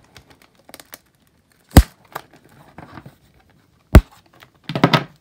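Cellophane shrink wrap on a cardboard booster box crinkling as hands handle and work it open. Two loud, sharp clicks come about two and four seconds in, and a dense burst of crinkling comes near the end.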